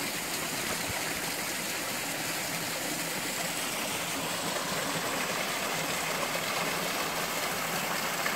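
Small forest creek tumbling down a rocky cascade: a steady, even rush of water, a little louder near the end.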